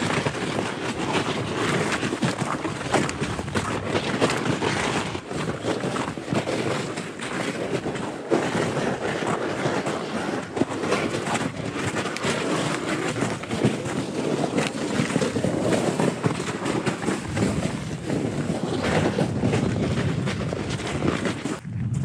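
Steady wind rushing and buffeting the microphone on the open sea shore, mixed with the wash of surf.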